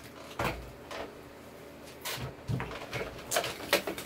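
Handling noise as the soldering station's mains power cord and its packaging are picked up and handled: irregular light knocks and clicks, more of them near the end.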